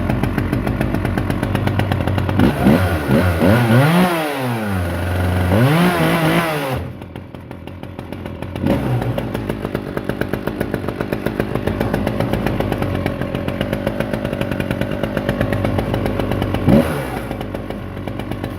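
Vintage Italian-made McCulloch two-stroke chainsaw running, revved up and back down twice in the first seven seconds, then idling steadily with two quick blips of the throttle. It is running again after a split impulse line was replaced and the fuel system flushed.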